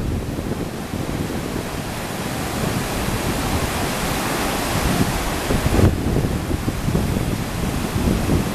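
Steady rush of churning whitewater from a large breaking river wave, with wind buffeting the microphone in uneven gusts. The sound changes abruptly about six seconds in, and the wind gusts are stronger after that.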